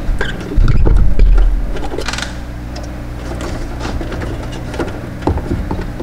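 Hands working a car's wiring harness and its corrugated plastic loom: scattered clicks and a short rustle. Under it runs a steady low electrical hum, and a loud low rumble comes about a second in.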